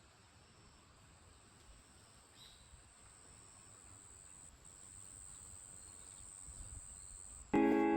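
Night insects, crickets or the like, chirring in a faint, steady, high-pitched drone. Music cuts in suddenly near the end.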